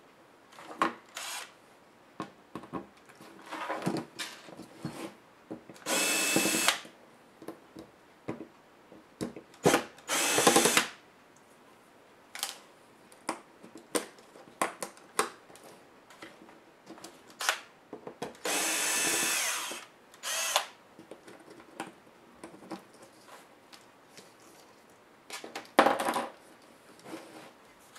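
Electric screwdriver running in three short steady bursts, the longest about a second and a half, with clicks and knocks of laptop parts and screws being handled between them.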